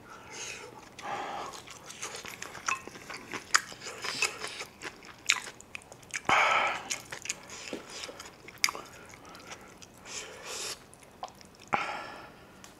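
Chewing and wet mouth clicks as a man eats kimchi fried rice with chopsticks, with a few short hissy breaths or sniffs among them.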